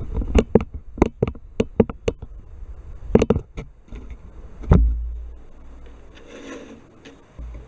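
Small plastic model-kit parts being handled and pressed into place by hand: a quick run of sharp little clicks and taps, then a dull thump about five seconds in, followed by faint rubbing.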